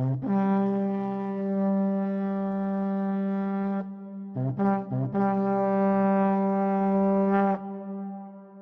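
Intro music: one low sustained note held for about four seconds, a pair of short notes, then the same note held again and fading away.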